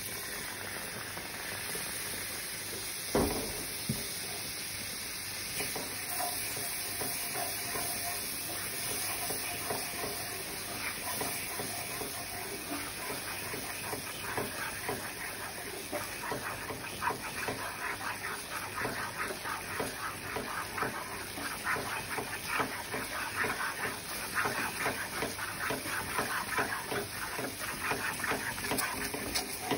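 Milk sizzling and bubbling in a hot butter-and-flour roux in a nonstick pan, with one sharp knock about three seconds in. From about halfway on, a silicone spatula stirs and scrapes the thickening sauce in quick, busy strokes.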